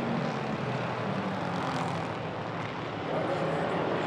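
A field of hobby stock race cars running at racing speed on an oval track, their engines a steady drone that dips a little past halfway and swells louder again near the end.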